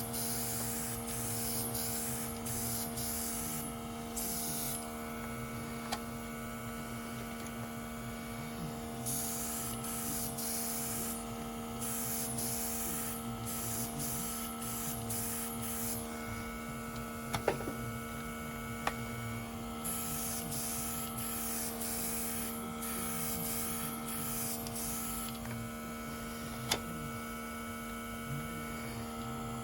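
Small nail-art airbrush compressor running with a steady hum, while the airbrush hisses in repeated spray bursts of a few seconds each. A few light clicks, the sharpest about two-thirds of the way through.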